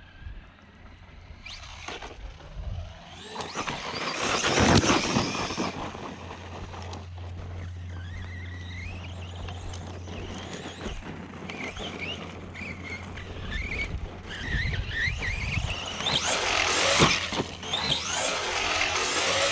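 Arrma Outcast 4S RC truck running: its electric motor whines up and down in pitch as the throttle is worked. There are louder rushes of noise about four to five seconds in and again near the end.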